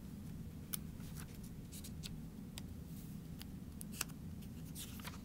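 Faint crinkles and clicks of a picture book's pages being handled and turned, scattered irregularly with one sharper click about four seconds in, over a low steady room hum.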